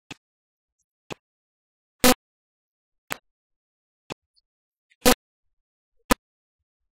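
A short sharp click once a second, evenly spaced, some clicks much louder than others, with dead silence in between.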